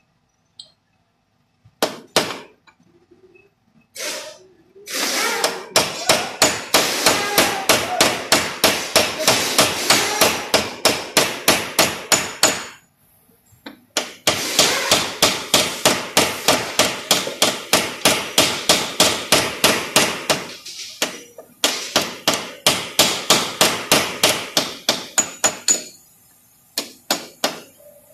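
Small hammer tapping rapidly on a car's painted sheet-metal body panel during paintless dent repair, about four light blows a second. The blows come in three runs with short pauses between them, then a few slower taps near the end.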